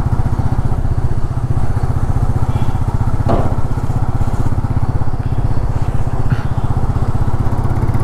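Royal Enfield Meteor 350's single-cylinder engine running steadily while the motorcycle is ridden, a low, even beat, with a brief faint click about three seconds in.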